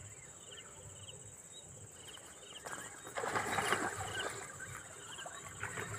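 Outdoor pond-side ambience: a steady high-pitched insect drone with short chirps repeating about every half second. A burst of rustling through leafy brush comes a little past the middle.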